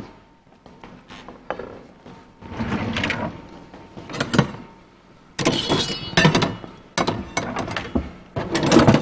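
Plates and metal cookware being handled on a kitchen counter and stovetop: a run of knocks, clatters and short scrapes, busiest in the second half.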